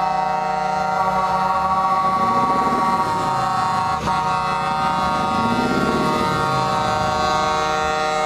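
Truck air horns sounding one steady, unbroken chord, held throughout and cut off sharply at the end.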